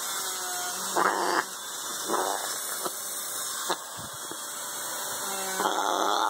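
African grey parrot, restrained in a towel, making raspy, noisy calls in bursts: a short one about a second in, another about two seconds in, and a longer one near the end. The calls are the sign of an upset, cranky bird being held for a nail trim.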